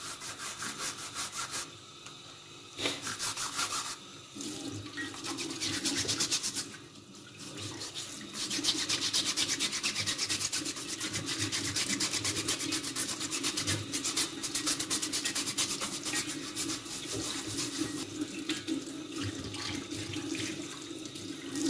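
Toothbrush bristles scrubbing rapidly back and forth over a plastic dishwasher filter and its mesh, scouring off built-up limescale and food residue, with short pauses. Tap water runs over the filter into the sink through much of it.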